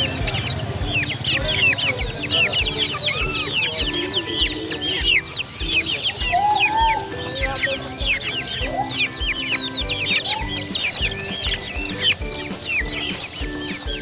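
Chickens clucking amid a dense chorus of small caged birds chirping, over background music with a steady beat of about two and a half thumps a second.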